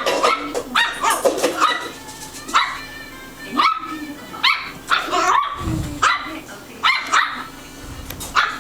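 Puppy barking: a run of sharp, high yaps, about one every half second to a second, with two low thuds in the second half.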